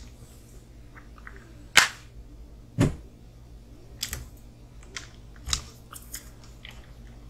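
Irregular sharp clicks and knocks of small RC crawler kit parts and tools being handled during assembly. The loudest are a sharp click about two seconds in and a duller knock a second later.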